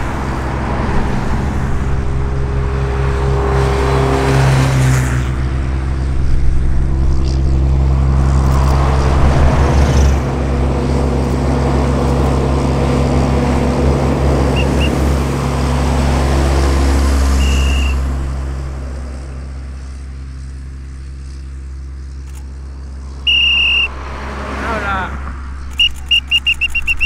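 Heavy dump truck's diesel engine running steadily close by, a low even hum that fades away after about eighteen seconds. Near the end come a short high tone and then a quick run of high chirps.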